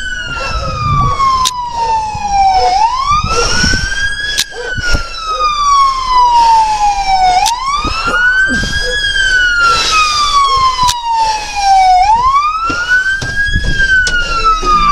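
Police car siren in wail mode, each cycle rising quickly and falling slowly, about once every four and a half seconds. Rustling and a few knocks from a body-worn camera jostled as its wearer moves sound over the siren.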